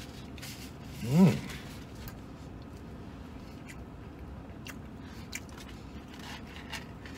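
A man chewing a large mouthful of sandwich, with faint scattered mouth clicks. About a second in comes a short, loud hummed "mmm" whose pitch bends.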